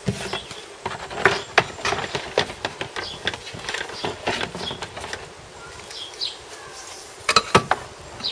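A flexible plastic tub being handled and fitted around an outboard motor's leg: irregular knocks, clicks and rustles, with a cluster of sharper knocks near the end.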